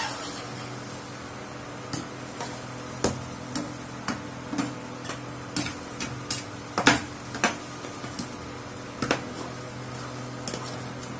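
Metal spatula scraping and knocking against a nonstick frying pan as cubes of raw banana are stir-fried, in irregular strokes often half a second to a second apart, over a steady low hum.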